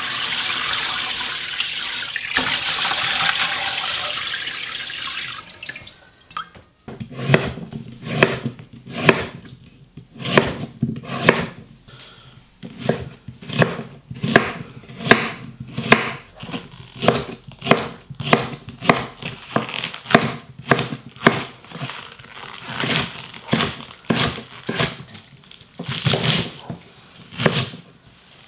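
Tap water pouring into a stainless steel pot while skate pieces are rubbed clean under it by hand. About six seconds in the water stops, and a kitchen knife chops on a wooden cutting board, roughly two strokes a second, cutting onion and then bunched water dropwort stems.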